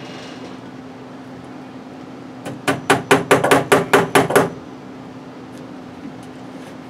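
Hammer driving a cable staple over Romex wire into a wooden rafter: about a dozen quick, sharp blows in two seconds, starting about two and a half seconds in.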